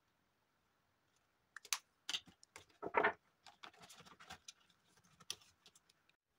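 Paper card and clear plastic binder pocket being handled: light clicks and taps starting about a second and a half in, with a short crinkling rustle of the plastic around three seconds in as the card is pushed back into the pocket.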